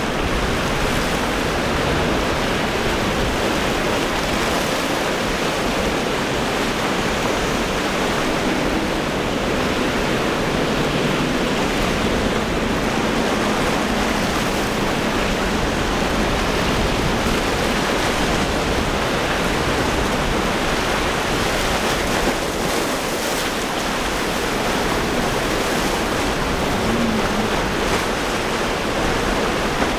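Steady rush of breaking surf and wind, with the faint low hum of a boat's outboard motor through about the first half.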